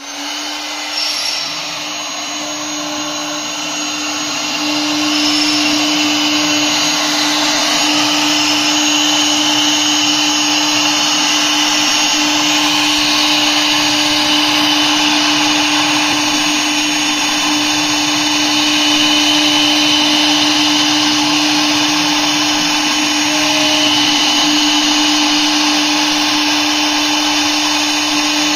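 Air-cooled spindle of an AKG6090 CNC router running with a steady high whine while its bit engraves grooves into a sheet, with a hiss of cooling air and cutting. It grows louder over the first few seconds, then holds steady.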